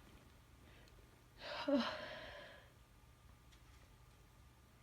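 A single breathy sigh lasting about a second, starting about a second and a half in, with a brief voiced catch near its start, from a person with a head cold whose itchy nose is failing to sneeze.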